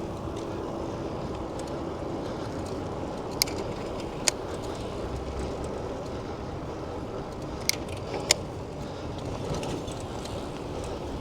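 Steady city traffic and road noise heard from a moving bicycle, with four short sharp clicks: two around three to four seconds in and two more near eight seconds.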